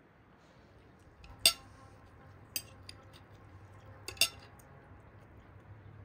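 Knife and fork clinking against a china plate while cutting grilled kabab koobideh: a few sharp clinks with a short ring. The loudest comes about a second and a half in, and a quick pair about four seconds in.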